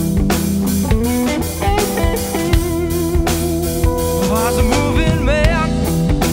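Rock band playing live: electric guitar, electric bass and drum kit over a steady drum beat, with bending, wavering guitar notes in the second half.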